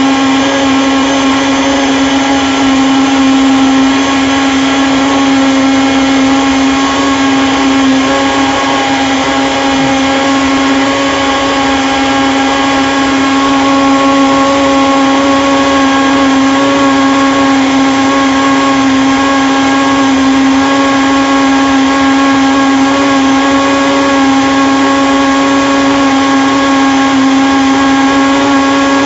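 Countertop blender running continuously, blending a fruit smoothie, its motor holding a steady pitch.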